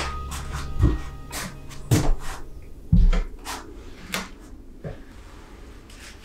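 Handling knocks on a wooden potting table: a few light knocks and a louder dull thump about three seconds in as a round glass bowl of water and cut pothos stems are set down on a fabric potting mat. Soft background music dies away in the first second.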